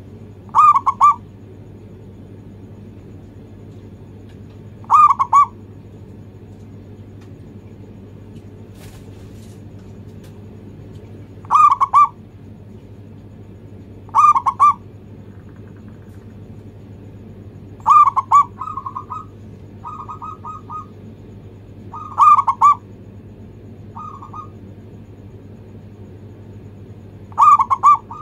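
Zebra dove (perkutut) cooing: seven short rolling phrases a few seconds apart, some followed by softer trailing notes, over a steady low hum.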